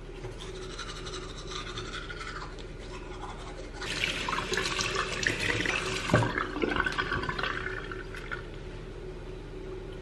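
Manual toothbrush scrubbing teeth, then a bathroom tap running water into the sink for about four seconds, with a single knock partway through.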